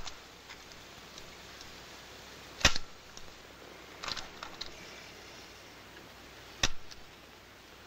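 Twin-lens reflex camera shutter clicking twice, about four seconds apart, with a few fainter clicks between, over a low steady hiss.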